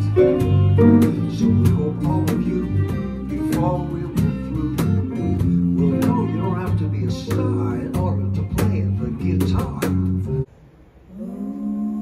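Live folk band playing an upbeat tune: fiddle and acoustic guitar over a regular beat of sharp cajon hits, with some singing. The music cuts off abruptly about ten and a half seconds in, and after a short hush a steady held tone begins.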